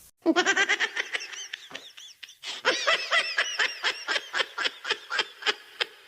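High-pitched, rapid giggling laughter used as a sound effect, in quick repeated syllables: one run, a short break about two seconds in, then a longer run.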